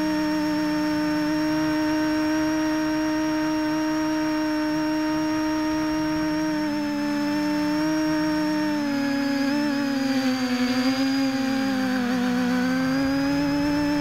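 Electric motors and propellers of a small FPV multicopter whining steadily from close up on the craft, with a second, lower tone wavering beneath. The pitch sags and recovers from about halfway through as the throttle changes.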